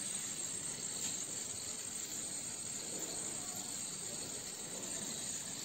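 Gas-oxygen burner flames on an ampoule sealing machine hissing steadily as blue jets. This jetting sound is the sign that the pre-heat flames are set right.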